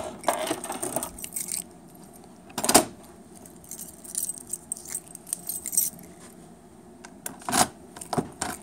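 A bunch of keys on a lanyard jangling and clicking as keys are turned in the metal locks of a voting machine's cabinet, with one louder knock about three seconds in and another run of key clicks near the end.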